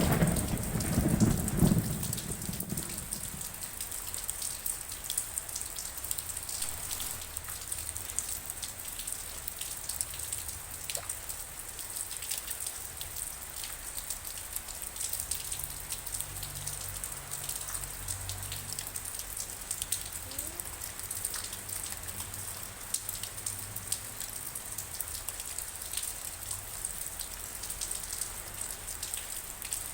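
Steady rain falling, with many separate drops ticking on surfaces. A low rumble of thunder dies away over the first couple of seconds.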